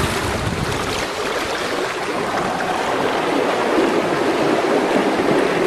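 Steady rushing of water along the hulls of a catamaran under sail, an even wash with no distinct calls or knocks.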